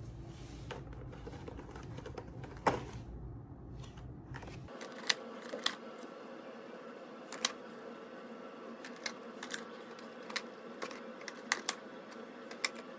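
Fingers tapping and flicking the cardboard doors of a Lindt advent calendar: a dozen or so scattered sharp clicks over a low steady background hum.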